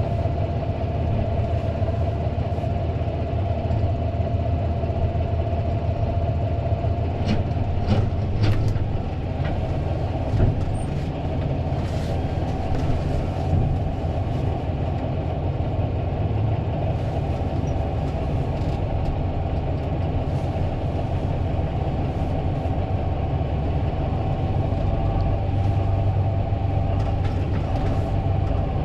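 Fendt 936 Vario tractor running steadily: a continuous low engine drone with a steady whine above it. A few sharp clicks and rattles come about a quarter to a third of the way in.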